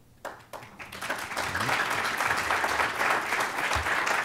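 Audience applauding: a few scattered claps build within about a second into steady applause.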